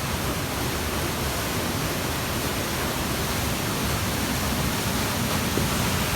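Waterfall: a steady, even rush of water falling and running over rocks close by.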